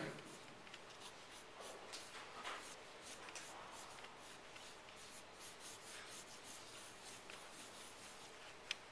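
Faint scratching of a graphite pencil on paper in many short strokes as circles are sketched, with a sharp tick near the end.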